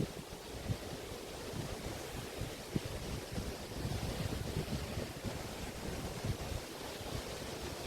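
Waves washing onto a Río de la Plata beach, a steady surf wash, with wind buffeting the microphone in low irregular rumbles.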